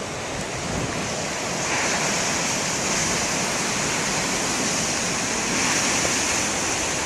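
Heavy ocean surf breaking and washing in, a steady rush that swells louder about two seconds in and again near six seconds, with strong wind.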